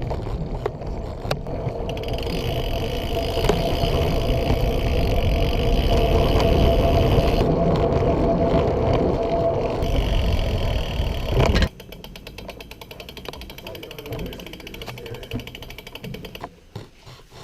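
Riding noise from a bicycle on the move: a steady rush of wind and road noise with a steady hum. About two-thirds of the way in it drops abruptly to a quieter stretch with a rapid, even fine ticking.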